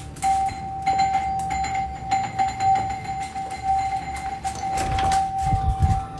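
Electric doorbell sounding as one steady, unbroken tone, which the narrator puts down to a faulty doorbell, over knocks and handling noise on the phone, with heavier bumps about five seconds in.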